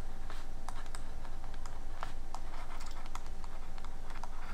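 Stylus tapping and scratching on a pen tablet during handwriting: a string of light, irregular clicks.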